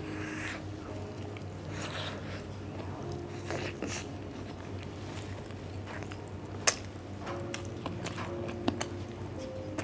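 Close-miked chewing and biting of grilled barbecue meat eaten from the fingers: soft wet mouth sounds broken by scattered small clicks, with one sharp loud click about two-thirds of the way through.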